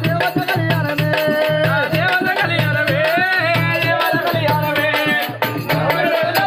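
A man sings a Telugu devotional folk song to the goddess Yellamma over steady, rhythmic hand percussion, with a regular beat of sharp strikes.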